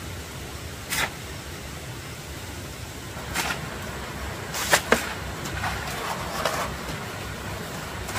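Stone and cement masonry work: a handful of short scrapes and knocks, with two sharp knocks close together about five seconds in, over a steady low rumble.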